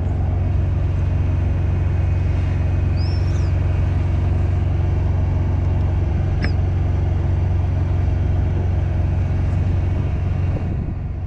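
Steady low hum of an engine idling, with a short high chirp about three seconds in and a sharp click a few seconds later.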